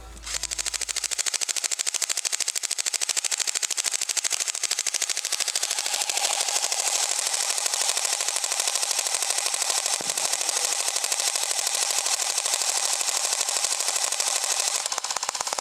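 Airsoft guns firing on full auto, a rapid, steady rattle of shots kept up almost without a break.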